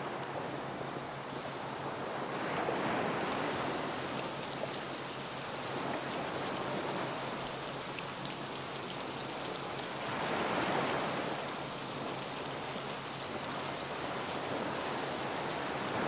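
Recorded water sounds: a steady rushing like surf that swells and eases, about twice, with a steady low hum underneath.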